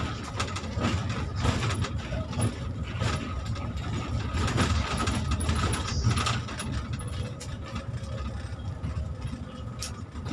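Inside a moving bus: a steady low rumble from the engine and road, with frequent rattling and clattering from the bus's fittings and a faint steady whine.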